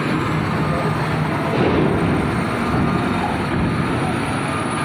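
Diesel engine of a loaded heavy flatbed truck running steadily close by as the truck drives slowly up onto a ferry's vehicle deck.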